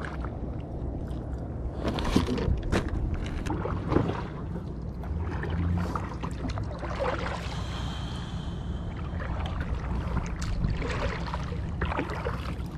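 A kayak being paddled: the paddle blades splash and drip in the water every second or two, over a low steady rumble.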